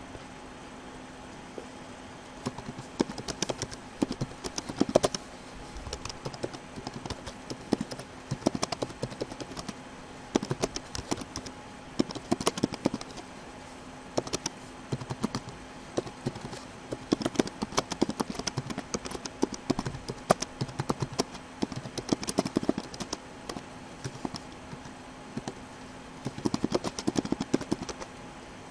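Typing on a computer keyboard: bursts of rapid key clicks with short pauses between them, starting a few seconds in, over a faint steady hum.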